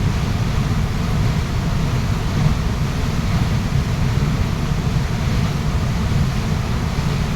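Waterfall rushing: a loud, steady, deep rush of falling water that does not change.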